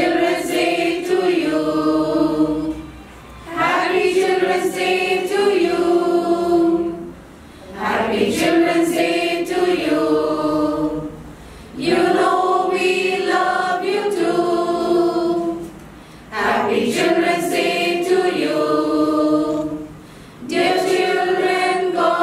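A choir of mostly women's voices singing together in phrases of about four seconds, each followed by a brief pause for breath.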